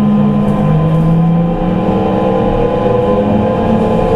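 Kintetsu 22000 series electric train's traction motors and VVVF inverter whining under motor car Mo 22117, with running rumble beneath. Several steady tones are heard: one steps down in pitch about half a second in, while a higher one slowly rises as the train gains speed.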